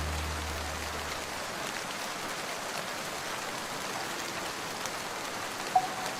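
Steady rain falling, an even hiss, while a low vocal hum fades out in the first second. A short clear tone sounds near the end.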